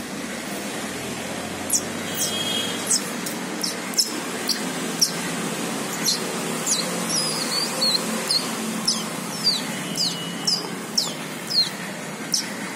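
A series of short, high chirps, each falling quickly in pitch, repeating about once or twice a second and coming closer together in the second half, over a steady low background hum.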